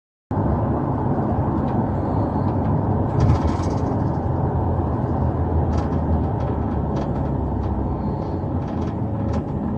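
Steady engine and road rumble inside a police patrol car, cutting in abruptly just after the start, with a few faint clicks and rattles.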